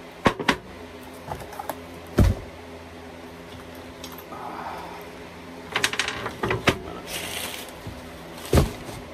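Metal lift-kit parts being handled and set down: a series of sharp knocks and clatter, loudest about two seconds in and near the end, with a brief rustle of packaging.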